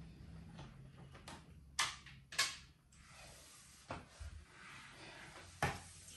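A few sharp knocks and clicks, four or five in all, over a low steady hum.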